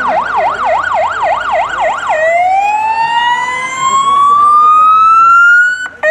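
Electronic siren on a fire brigade van, first in a fast yelp sweeping up and down about four times a second, then about two seconds in switching to a slow wail that rises steadily in pitch. It cuts off suddenly just before the end.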